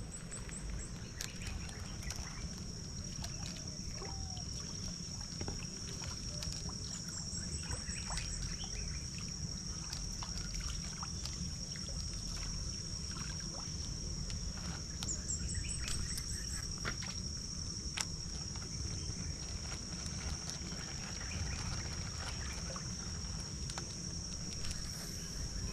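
Riverbank ambience: a steady, high-pitched insect drone, with a bird giving a short run of high notes three times, over a low rumble and a few faint clicks.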